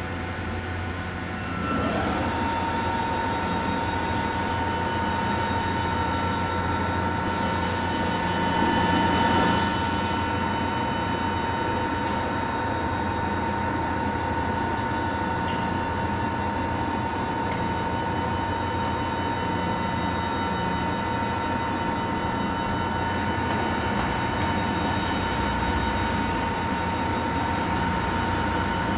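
Summit 42x120 heavy-duty engine lathe running under power: a steady mechanical hum with a high, even whine that comes in, a little louder, about two seconds in.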